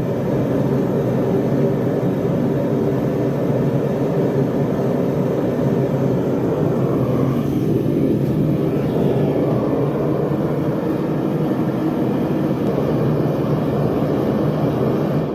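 Two venturi gas burners firing into a newly built gas forge, giving a loud, steady rushing burn during a test run.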